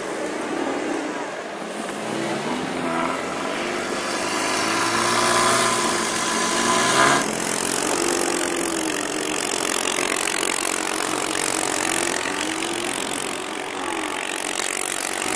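Chevrolet Niva's engine revving up and down as it ploughs through deep snow. Its spinning wheels throw snow with a dense hiss under the engine note.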